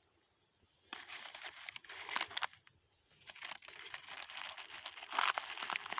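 Plastic and paper litter crinkling as it is handled and gathered up, in two bouts of crackly rustling, the first starting about a second in and the second, louder one starting about three seconds in.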